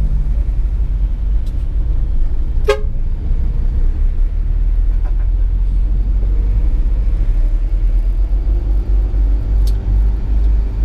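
Steady low drone of a SANY 6x4 dump truck's diesel engine under way, heard inside the cab, with one short horn toot about three seconds in.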